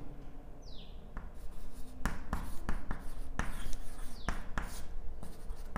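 Chalk writing on a chalkboard: a run of short scratchy strokes and taps, mostly from about two seconds in.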